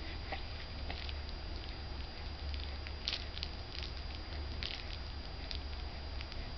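Soft, scattered clicks and rustles, irregular and a few at a time, over a steady low hum.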